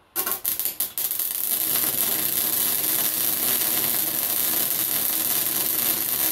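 Welding arc on the cracked exhaust of a Polaris Sportsman 800 ATV. It sputters on and off a few times in the first second, then settles into a steady, even crackle as a bead is laid.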